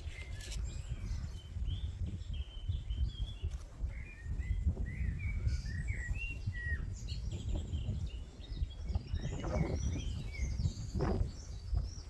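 Small birds chirping and twittering in quick, short calls over a steady low rumble, with a few brief rustles about nine to eleven seconds in.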